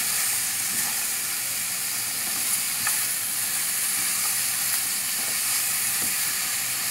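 Pork pieces, garlic and onion sizzling as they sauté in their own rendered pork fat, stirred with a spatula in a pan. The hiss is steady throughout.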